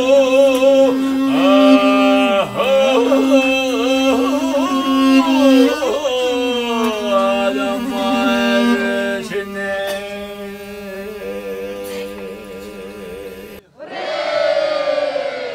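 Mongolian long song (urtyn duu) sung solo by an elderly man: long held notes with wavering, melismatic ornaments over a steady low sustained note. About two seconds before the end it breaks off, and a different, louder passage of voices begins.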